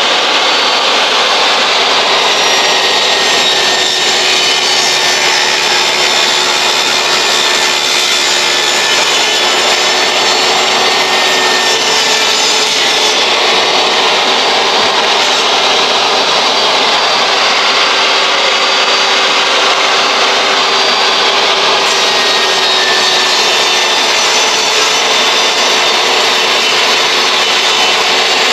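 Portable jobsite table saw running without a stop, its motor whine holding one pitch. It is ripping the click-lock edges off laminate flooring planks, one plank after another.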